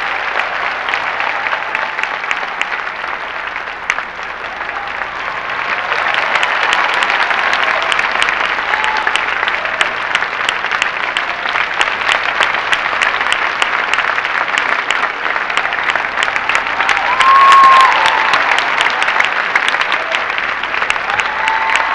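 A large theatre audience applauding steadily, the clapping growing louder about six seconds in, with a brief cheer rising above it about seventeen seconds in.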